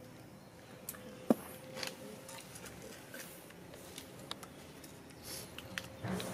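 Young macaques eating slices of fruit: small wet clicks and smacks from the chewing, with one sharp click a little over a second in.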